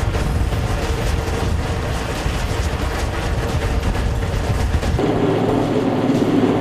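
Heavy-lift helicopter hovering with a load on a long line, its rotor chopping in a fast steady beat over the turbine's drone. About five seconds in, the deep rumble drops away and a mid-range drone grows louder.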